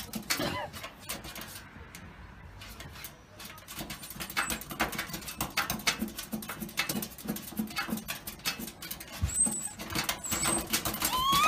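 Kaninchen dachshund puppy pawing fast at the plastic casing of a fan heater, its claws making a rapid run of scratchy taps that thickens from about four seconds in. A short whine sounds at the start and a rising whine near the end.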